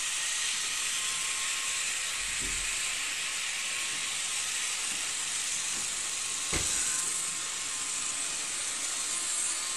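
Model railway train running on its track: a steady hiss with a faint hum, and one knock about six and a half seconds in.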